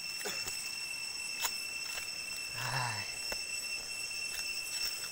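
Steady high-pitched insect chorus, one unbroken shrill tone with overtones, with a few faint clicks and a brief faint voice about two and a half seconds in.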